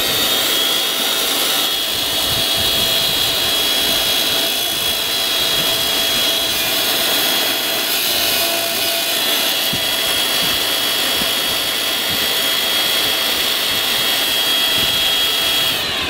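Homemade steam raising blower for a miniature steam locomotive, a 12 volt motor driving a fan impeller, running at full speed. It gives a steady high whine over rushing air, with a good strong suction and blowing action, and starts to wind down at the very end.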